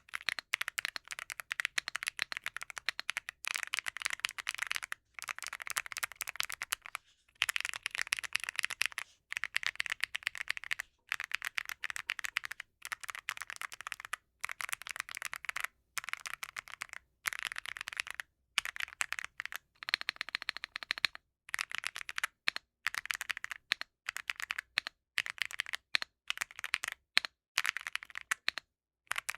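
Typing on an Epomaker Tide65 aluminium mechanical keyboard fitted with a mix of Gateron Oil King, Gateron Jade and MMD Princess switches under SA-profile keycaps. Keystrokes come in quick runs of a second or two with brief pauses between them, making a crackling clatter meant to sound like a campfire.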